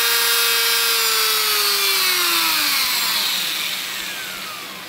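Handheld electric rotary tool (engraver) running at high speed with a steady whine, then winding down about a second in, its pitch falling and fading as the motor coasts toward a stop.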